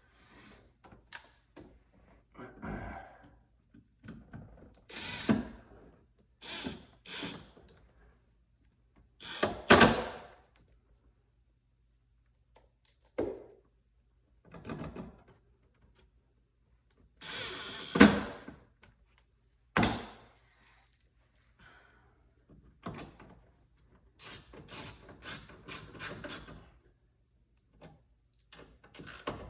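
Tools and parts being handled while the speaker is screwed into the car door: scattered knocks and thunks, the loudest about ten and eighteen seconds in, with a quick run of clicks near the end.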